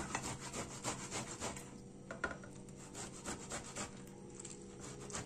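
Ripe peach flesh grated by hand on a metal box grater: quick rasping strokes, about four a second, that thin out and get quieter a little under two seconds in.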